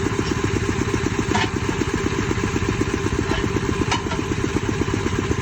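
An engine idling steadily with an even, rapid pulse, and a couple of faint clicks over it.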